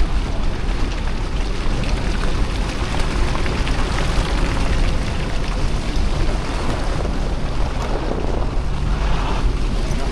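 Lexus GX470 driving along an off-road trail: a steady low rumble of engine and tyres under an even hiss, with no distinct knocks or changes.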